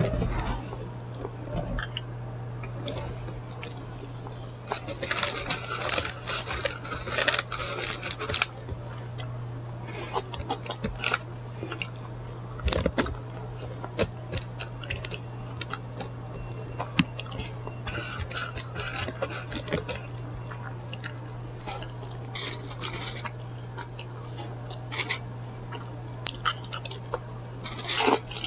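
Close-up eating sounds: chewing and biting into a chicken sandwich, with irregular crunches and crackles, over a steady low hum.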